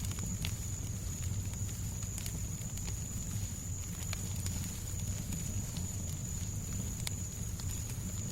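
Fireplace crackling: scattered sharp pops and snaps over a steady low rumble and soft white-noise hiss, with a thin steady high tone underneath.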